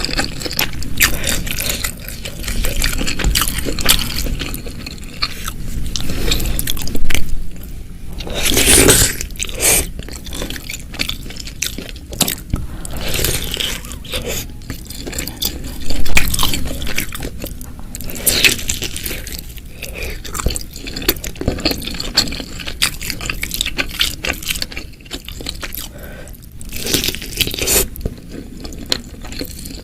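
Close-miked eating sounds of spicy meatball soup: wet chewing and crunching with liquid sounds, and several louder bursts spread through.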